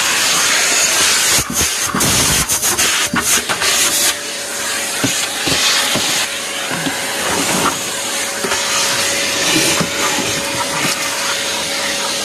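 Steady loud hiss, with a run of clicks and rustles between about one and a half and four seconds in, then a faint steady hum from about four seconds on.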